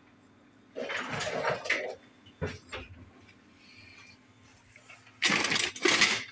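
Handling noise: a few short bursts of rustling and scraping as a cardboard box and a can are moved about on a kitchen countertop, the loudest burst near the end, over a faint steady low hum.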